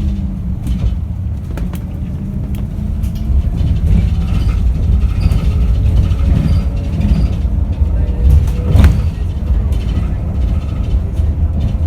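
Yutong E12 battery-electric bus on the move: heavy low rumble with scattered rattles and clicks, and a faint steady whine from its permanent-magnet motor through the middle. One sharp loud knock about nine seconds in.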